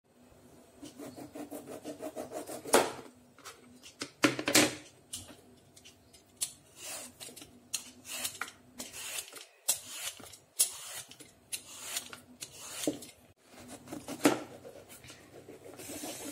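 A kitchen knife peeling the skin off a ripe mango: a run of short, irregular scraping strokes, with a few sharper clicks along the way.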